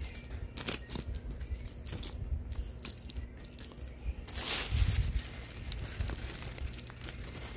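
Plastic shrink-wrap on bars of soap crinkling and crackling as they are handled and shifted, with small clicks and handling bumps; a louder rustle and a couple of low thumps come about four and a half seconds in.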